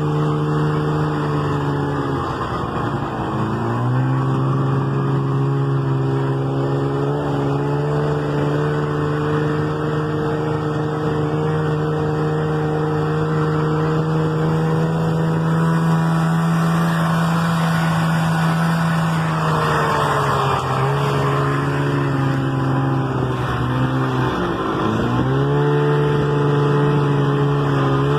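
Snowmobile engine running steadily under way. Its pitch sags when the throttle eases, deeply about three seconds in and again near the end, then climbs back as the throttle opens.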